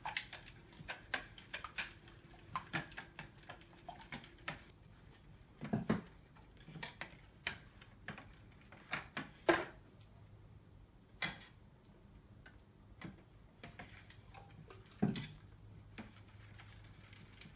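A spatula stirring glue slime in a mixing bowl, clicking and knocking irregularly against the bowl's side, with a few louder knocks spread through. The slime is being worked hard as contact solution is added to activate it.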